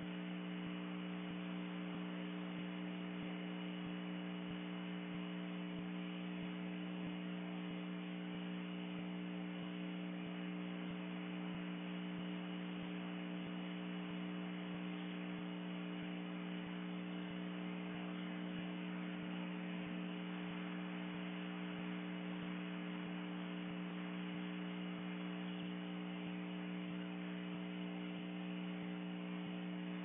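Steady electrical hum: a constant low drone of several fixed tones with an even hiss above it, unchanging throughout.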